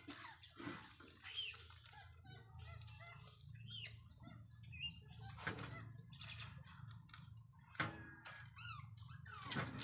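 Birds chirping again and again in short rising and falling calls, over scattered sharp clicks and knocks, the loudest click about eight seconds in, and a low steady hum.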